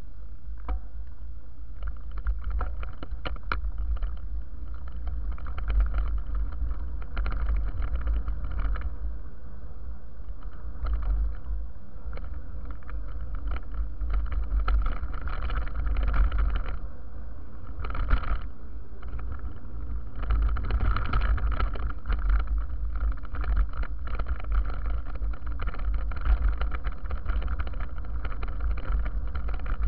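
Mountain bike ride down a dirt track: wind rumbling on the microphone, tyres rolling over the dirt, and frequent rattles and knocks from the bumps, a few of them louder.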